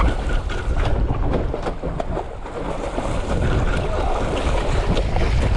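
Wind buffeting the microphone, with water splashing against the hull as a hooked fish thrashes at the surface beside the boat.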